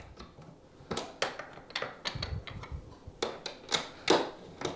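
Irregular small metallic clicks and clinks, about ten of them, from working a hand-cranked case trimmer and handling brass .270 Winchester cases as a trimmed case is released from the holder.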